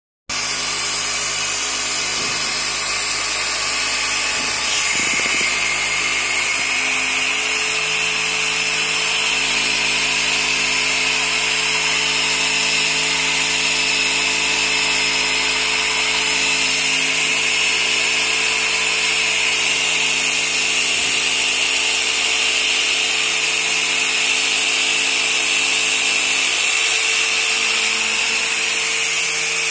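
Handheld electric polisher with a wool buffing pad running steadily against a plastic headlight lens, buffing out oxidation; an even motor whine that holds the same pitch throughout.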